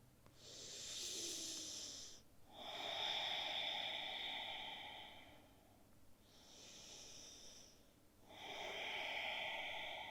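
A person breathing audibly and slowly: two full in-and-out breaths, each breath lasting two to three seconds.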